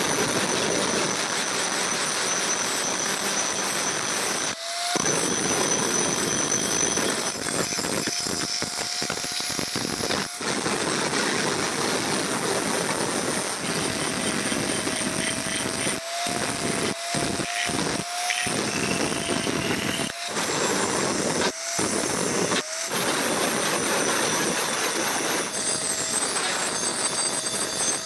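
Angle grinder running against a steel knife blade, grinding it with a steady hiss and a whine from the motor.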